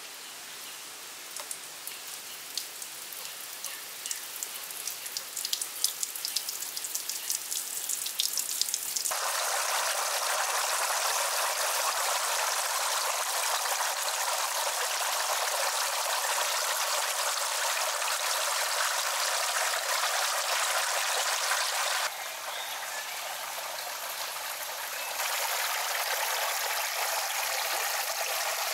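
Water from holes in a bamboo pipe falling into a small pond: scattered drips and splashes at first, then from about nine seconds in a steady trickling rush of many thin streams. The rush drops a little in level and comes back up near the end.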